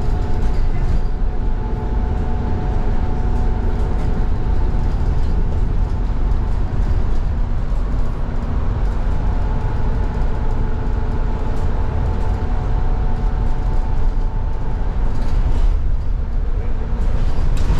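Steady ride noise of an Irizar IE-TRAM bus under way, heard from inside the cabin: a continuous low rumble of tyres and road with a steady hum of several tones from the drivetrain.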